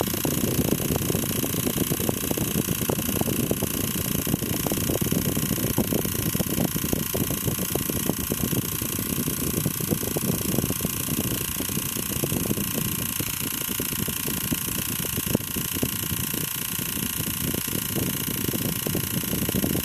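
Small motor of a spinning LED light-up toy running steadily, its whirring blades making a continuous rough whir that starts abruptly.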